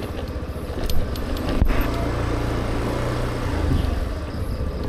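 Suzuki Burgman Street 125 EX scooter's single-cylinder engine running at low speed as the scooter slows, with road and wind noise and one short thump about a second and a half in.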